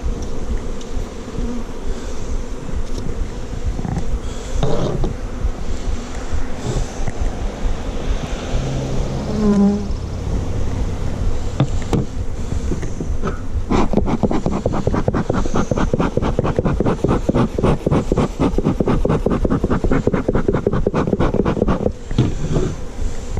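Honeybees buzzing in a dense, steady hum at an open hive. About halfway through, a rapid, even patter of clicks joins the buzz for about eight seconds and then stops.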